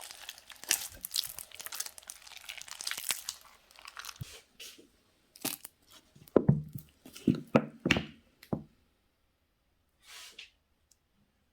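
Slime being worked by hand: dense crackling for the first few seconds, then a handful of louder, deeper squishes and pops before it goes quiet.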